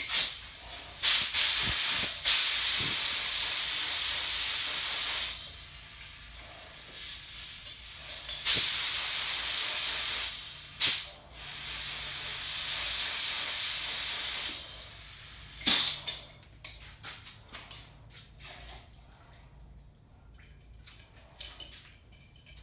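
Compressed-air paint spray gun fired in three long bursts of hiss, each a few seconds long, with sharp clicks as the trigger is pulled. It is spraying wash thinner to set up the fan pattern and fluid needle before paint goes in. Near the end there are only light handling clicks.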